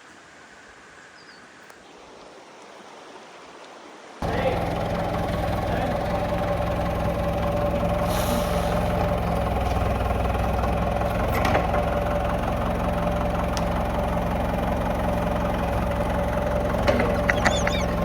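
A tractor engine running steadily, coming in abruptly about four seconds in after a faint, quiet stretch.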